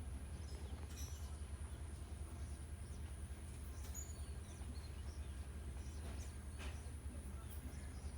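Outdoor farm ambience: a steady low rumble with a thin, steady high-pitched whine, and a few faint short chirps about a second, four seconds and near seven seconds in.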